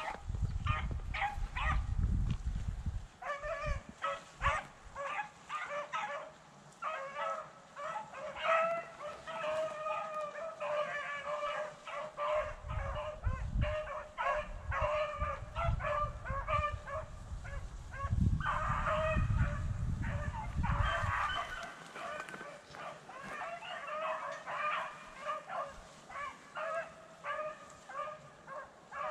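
A pack of rabbit beagles baying and barking without a break as they run a rabbit, with a low rumble on the microphone at the start and again about two-thirds through.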